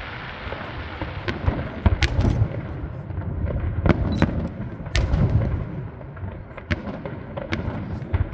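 Fireworks display: a steady low rumble of shell bursts overhead with sharp cracks and bangs going off irregularly throughout.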